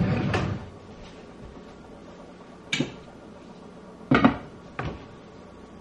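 Kitchen handling sounds: a short rustle at the start, a sharp click, then the metal lid of a cooking pot clanking about four seconds in, followed by a lighter knock.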